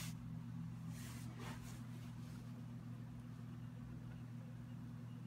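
Steady low mechanical hum, with a few faint rustles of bedding in the first two and a half seconds as a puppy moves about on it.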